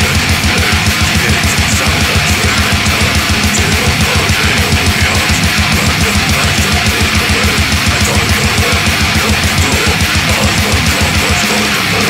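Death metal recording: heavily distorted guitars over a very fast, even double-bass kick drum pattern. The kick drums stop shortly before the end.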